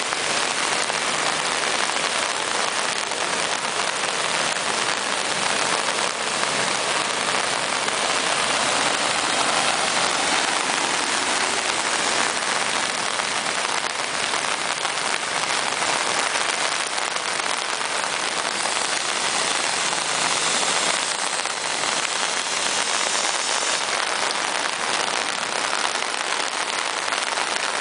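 Heavy rain pouring steadily onto a flooded street, an even, unbroken hiss with no let-up.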